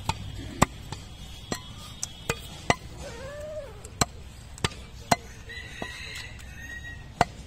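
Heavy butcher's cleaver chopping through beef brisket into a round wooden log block: sharp, irregular chops, about nine in all, some less than a second apart.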